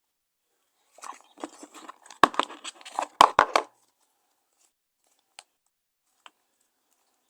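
Slime being squished and worked by hand, giving a run of crackling pops and clicks for about three seconds with a few sharp snaps in the middle, then a couple of single clicks.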